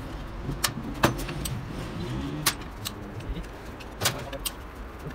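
Hand tools clinking and knocking against a diesel injection pump's metal housing and a steel workbench, about six sharp clinks spread unevenly, over a steady low rumble.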